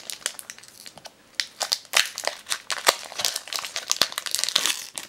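Foil wrapper of a Pokémon Légendes Brillantes booster pack crinkling and crackling as it is handled. The crackles come thicker after about a second and a half.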